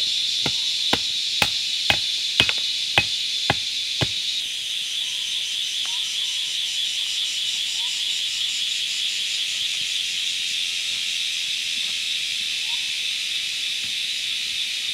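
A hatchet striking a wooden pole about eight times, roughly two blows a second, driving it into the ground, stopping after about four seconds. A steady, high insect drone runs throughout, with a few faint bird chirps later on.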